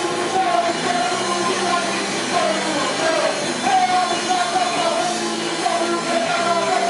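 Punk hardcore band playing live: electric guitars and drums with a man singing into the microphone.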